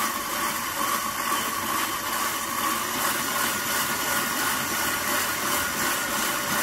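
KitchenAid stand mixer running steadily, its wire whisk beating egg whites in a stainless steel bowl as they are whipped into Italian meringue.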